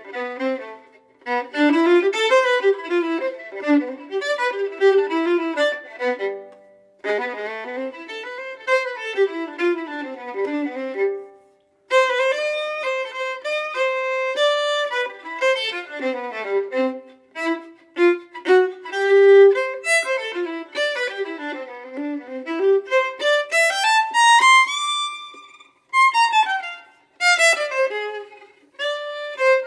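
Solo fiddle tune: a violin playing quick runs of notes with short breaks between phrases, and a long rising scale about three-quarters of the way through.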